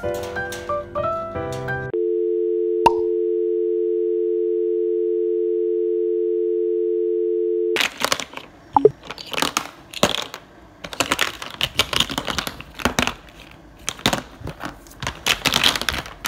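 A steady two-note tone like a telephone dial tone holds for about six seconds, then cuts off; plastic toy building blocks then click and clatter irregularly against a hard tabletop as a toddler handles them.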